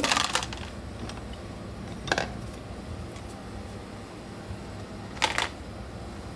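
Kitchen food-preparation handling noises: three brief soft noises, one at the start, one about two seconds in and one about five seconds in, over a steady low hum.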